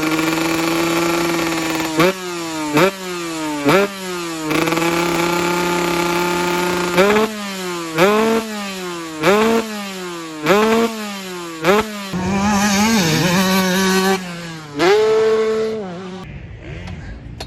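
Honda CR125 single-cylinder two-stroke engine idling and being blipped: about nine sharp revs, each rising quickly in pitch and falling back, with a longer higher rev in the second half. About 16 seconds in the engine sound drops away to a much quieter level.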